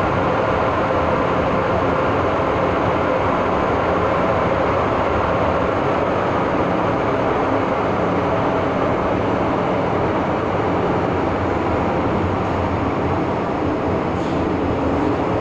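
MTR M-Train metro car running at speed, heard inside the passenger car: a steady rumble of wheels on rail with a low hum underneath.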